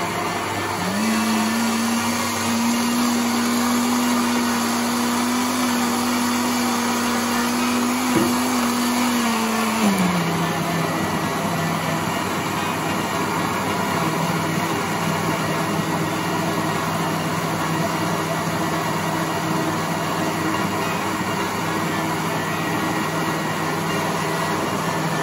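Electric blender running steadily, blending krueo ma noy leaves with water; its motor hum rises in pitch about a second in and drops back after about ten seconds.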